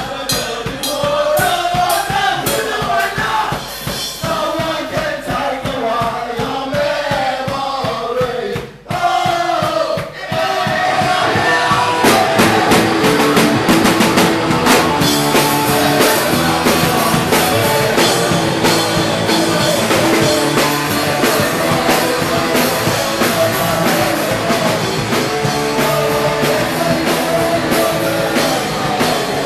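Punk rock music: singing over regular drum beats, with a brief drop just before nine seconds, then the full band comes in louder and denser about twelve seconds in.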